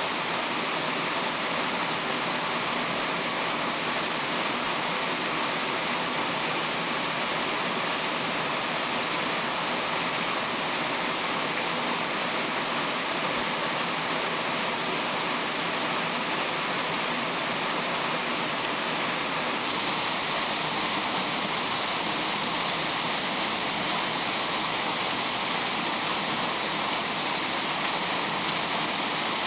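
Steady rushing of flowing stream water, an even hiss with no breaks. About two-thirds of the way through, the high part of the hiss becomes brighter and stays so.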